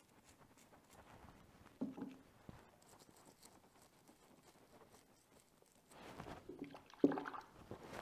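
Brass wire brush scrubbing a small metal brake-lever part, a faint scratchy rasp, with wet splashes and drips as the brush is wetted in a bucket of soapy water. The loudest splash comes about seven seconds in.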